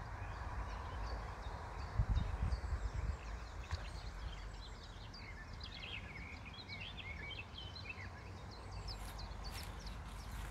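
Small birds chirping and trilling in quick short notes, most busily in the middle, over a steady low rumble of wind on the microphone that gusts about two seconds in. A few faint clicks near the end.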